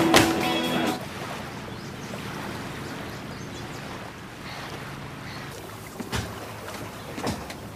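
Background music stops about a second in, giving way to a steady outdoor ambience of wind and water. A few short knocks come near the end.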